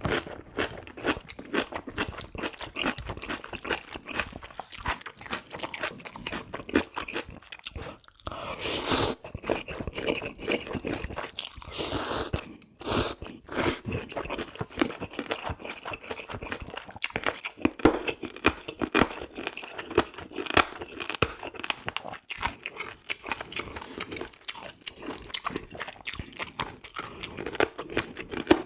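Close-miked eating sounds: steady, irregular chewing and crunching of food, with two longer noisy bursts about nine and twelve seconds in.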